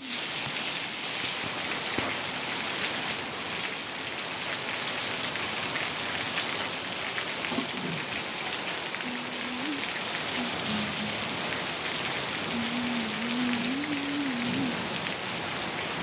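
Heavy rain falling steadily, a dense even hiss of drops on leaves and ground with water streaming off a roof edge.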